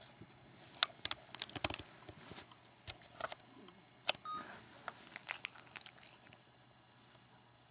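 A dog's mouth clicking and smacking close to the microphone: a string of sharp, uneven wet clicks over about five seconds, with a brief faint beep about four seconds in.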